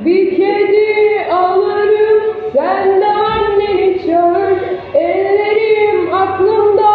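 A young girl singing a song solo in a high voice, holding long notes that slide between pitches.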